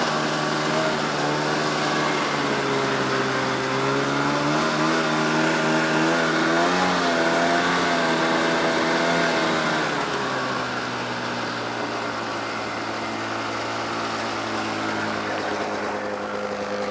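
2001 Polaris XC SP 500 snowmobile's two-stroke twin engine running. It is revved up a couple of seconds in with a wavering throttle, held higher for a few seconds, then drops back to a steady idle about ten seconds in.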